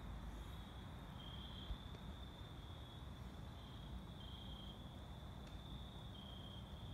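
Crickets chirping in a faint, steady high trill, two slightly different pitches taking turns every second or two. Under it is a low rumble, and there is one soft bump a little under two seconds in.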